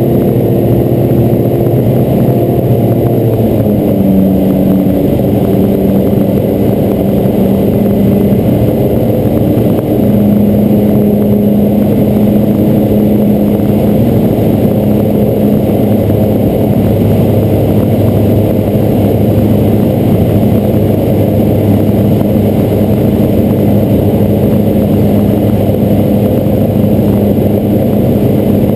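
Robin DR400 light aircraft's piston engine and propeller running in flight, a loud steady drone heard inside the cockpit. Its tone shifts slightly about four seconds in.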